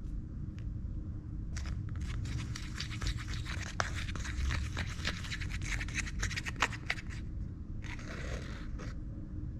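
Small plastic spoon stirring and scraping a thick candy paste of powder and water in a thin plastic tray: a quick, busy run of scratchy scrapes and small clicks, with a short scrape near the end.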